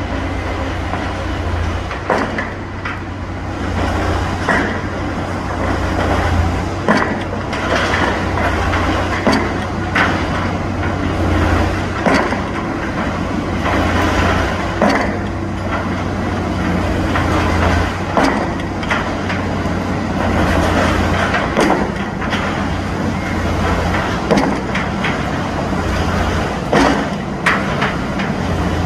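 Pile driver at work: an engine runs steadily underneath while the hammer strikes again and again with sharp knocks, irregularly, about one every one to two seconds.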